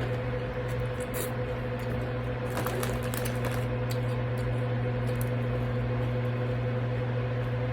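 Steady low electrical hum from a room appliance, with a few soft clicks and smacks of someone eating from a bowl and chewing.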